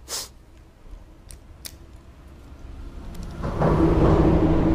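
An engine starts running about three and a half seconds in, loud and steady with a low hum. Before it, a short rustling burst and a few faint clicks.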